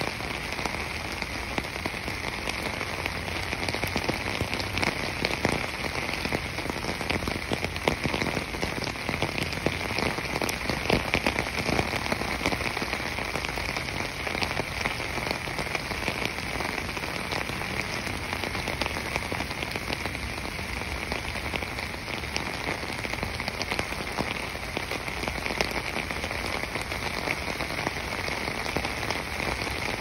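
Steady rain falling: a dense, even patter of many small drops over a continuous hiss.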